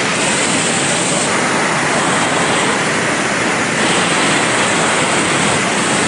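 Roar of the Devil's Throat at Iguazú Falls: a loud, steady rush of a huge volume of falling water.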